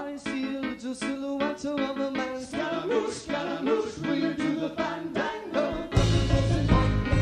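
Live rock band playing, with a singer at the microphone over electric guitar and bass; the full band comes in louder, with a heavy low end, about six seconds in.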